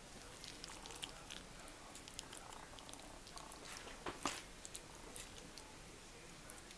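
Faint clicks and light scrapes of a fork against a ceramic plate while picking up chicken and rice, with a louder clink about four seconds in.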